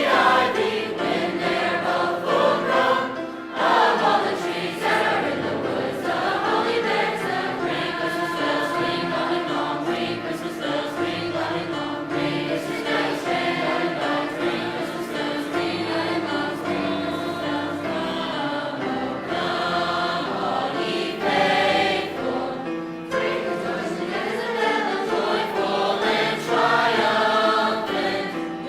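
High school choir singing a Christmas song with accompaniment, several voice parts holding and changing chords.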